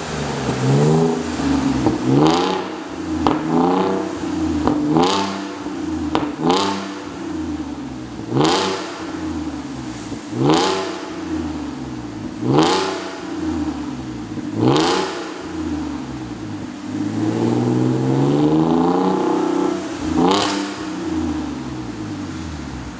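2017 Porsche Cayenne S E-Hybrid's supercharged V6 revved while standing, through a Fi Exhaust valvetronic exhaust: a few quick throttle blips, then single revs about two seconds apart, and near the end a longer, held rev. Several revs end in a sharp crack at the top.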